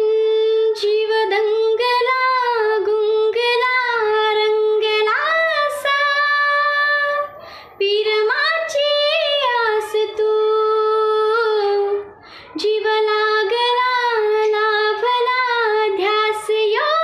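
A young woman singing a Marathi song solo, unaccompanied, in long held notes and slow phrases, pausing briefly for breath twice.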